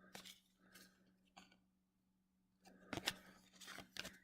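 Faint clicks and rustles of baseball trading cards being flipped through by hand: a few soft ticks at first, then a quick run of them in the second half.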